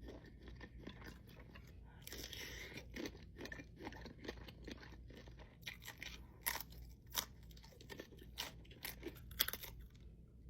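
Eating sounds of seafood: chewing and crunching, with a denser crackling stretch about two seconds in and several sharp clicks in the second half.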